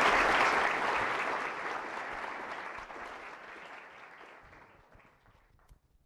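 Audience applauding, loudest at the start and dying away over about five seconds.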